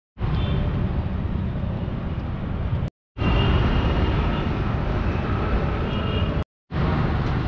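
Steady outdoor street noise, mostly a low rumble of traffic. It drops out briefly twice, about three and about six and a half seconds in, where clips are cut together.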